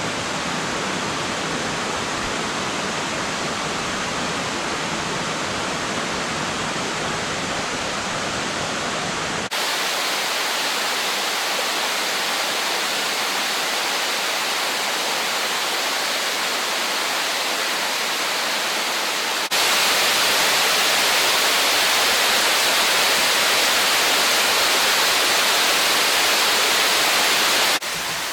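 Hishi no Taki waterfall: a steady rush of falling water. The sound jumps abruptly brighter and louder twice, about ten and twenty seconds in, then drops back near the end.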